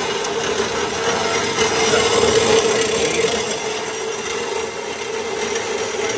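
Horizontal metal-cutting band saw running and cutting through a metal tube: a steady hum with the blade's scraping hiss in the metal.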